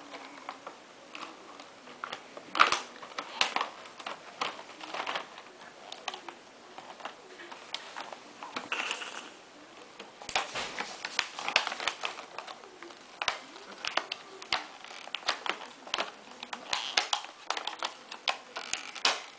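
Irregular clicks and taps of small fingers handling the stiff plastic packaging of a boxed toy truck, with a sharper knock about two and a half seconds in.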